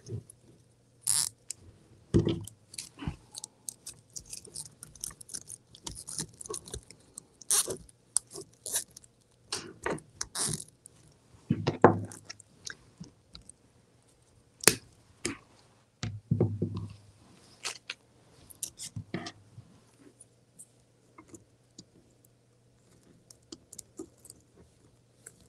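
Poly burlap mesh crinkling and rustling as petals are handled and pressed into a wreath form, with scattered sharp clicks and short scrapes. The handling sounds come in irregular bursts and thin out over the last few seconds.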